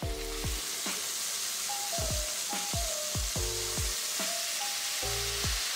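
Hot oil with crushed chili and chili powder in a wok sizzling hard as a tablespoon of vinegar hits it, starting suddenly and holding steady while it is stirred with a wooden spatula. Background music with a rhythmic bass line plays over it.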